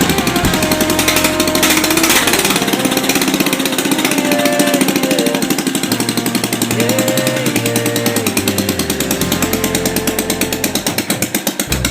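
Kohler single-cylinder garden-tractor engine running with a rapid, even firing beat, mixed with rock music carrying guitar notes.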